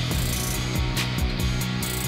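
Background music with sustained bass and chords over a drum beat.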